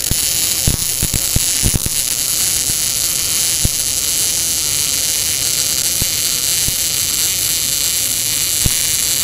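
MIG welding arc from a Tenya Smartmig 265 welder: a steady hissing crackle over a low hum, with scattered sharp pops, several of them in the first two seconds.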